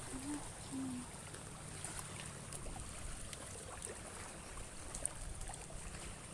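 Shallow water lapping and trickling at the shoreline, a faint steady wash. Two short low hoots in the first second.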